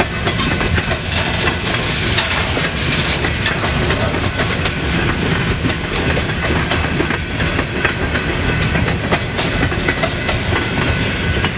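Freight train cars rolling past with a steady clickety-clack of wheels over the rail joints.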